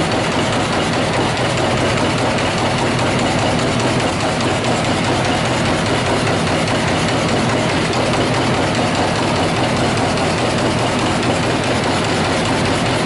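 TRUMPF TruMatic 500 punching machine working sheet steel: a dense, steady clatter of rapid punch strokes over a steady machine hum.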